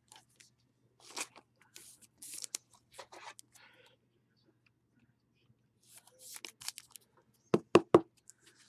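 Trading cards and their plastic wrappers and sleeves being handled, making crinkling rustles, then a few sharp knocks on the tabletop near the end.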